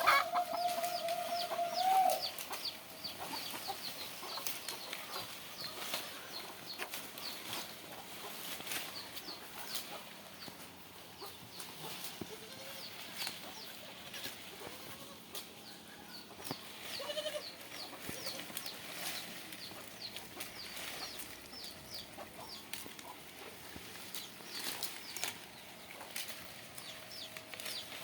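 A goat bleats in one long call of about two seconds at the start and gives a shorter bleat later. Chickens cluck and chirp rapidly and high-pitched through the rest.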